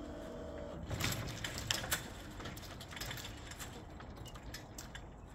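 A series of light clicks and knocks, loudest in a cluster about one to two seconds in and then scattered lighter ticks, over a faint steady outdoor rumble.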